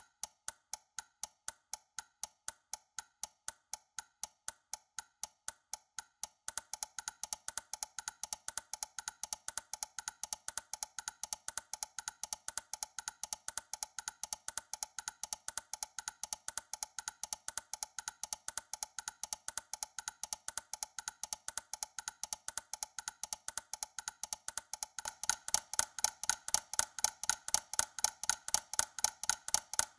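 Ticking timer sound effect: a steady run of short, dry ticks several times a second, stepping up in loudness about six seconds in and again near the end.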